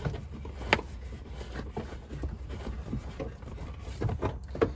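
Twin-core electrical cable being pulled by hand through a drilled hole in a plastic trim panel, rubbing and knocking against the plastic in short irregular clicks, with a sharp click about a second in and a cluster of knocks near the end.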